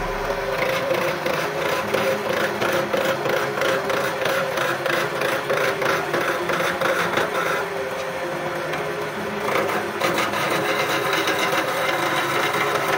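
Motor-driven homemade wood lathe running with a steady hum while a hand-held chisel cuts a spinning wooden blank, giving a continuous rough scraping chatter of wood being turned.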